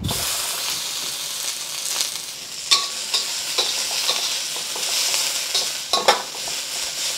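Diced onions hitting hot oil in a steel wok and sizzling at once, stirred with a metal wok spatula that clinks and scrapes against the pan a few times.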